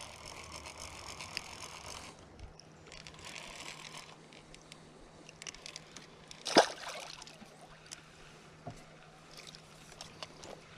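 Creek water running in a steady hiss, with scattered small clicks and handling noise and one short, sharp, louder sound about six and a half seconds in.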